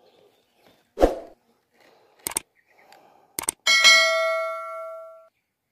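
Subscribe-reminder sound effects: a pop about a second in, two short clicks, then a bell ding that rings out and fades over about a second and a half.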